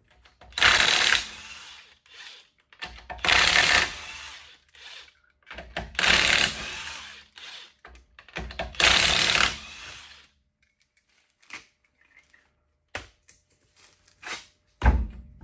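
Impact wrench run in four separate bursts of about a second and a half each, loosening a car wheel's lug nuts to take the wheel off, followed by a few faint knocks.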